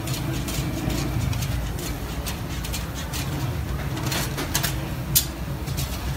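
Busy street-food-stall background: a steady low hum with irregular light clicks and clacks, and one sharp click about five seconds in.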